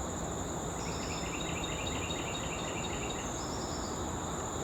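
Outdoor ambience of a steady, high insect drone, typical of crickets, over a low background hiss. About a second in, a songbird sings a quick series of repeated short notes that stops a little past the middle.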